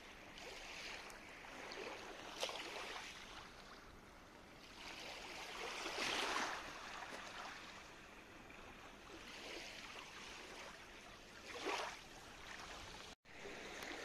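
Small waves of a calm sea lapping on a pebble shore: a soft, faint wash that swells a few times, most strongly about six seconds in. The sound drops out for an instant near the end.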